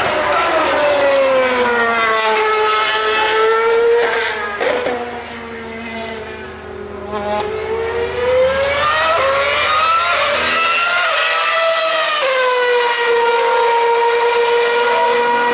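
2013 Formula One cars' 2.4-litre V8 engines running at high revs on track. The engine note falls over the first few seconds, fades briefly about five seconds in, then climbs again and holds steady.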